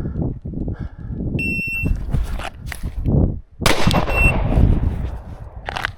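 A shot timer beeps once, and about two seconds later a pistol fires a single shot, with a short beep tone just after it. Wind rumbles on the microphone throughout.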